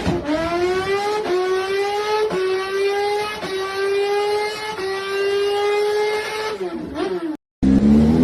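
High-revving motorcycle engine sound climbing in pitch in steps, dipping briefly about once a second as if shifting up through the gears. Near the end it falls away and cuts off abruptly.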